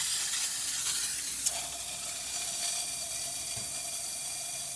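Steam wand of a La Pavoni Professional lever espresso machine releasing steam with a steady hiss. About a second and a half in, a click is followed by a steady whistling tone over the hiss.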